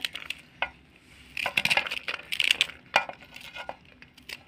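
Chopped rat-tail radish pods (mongray) being stirred and let fall by hand in a metal bowl: light rustling and clinking in two short spells, with a sharp click about three seconds in.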